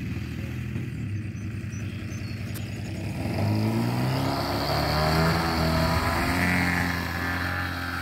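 Desert Aircraft DA-70 twin-cylinder two-stroke gasoline engine of a 120-inch Turbo Bushmaster model plane, fitted with a canister muffler, opened up to full throttle for the takeoff roll. It rises in pitch and loudness about three seconds in, runs hard for several seconds, then eases slightly as the plane moves off down the runway.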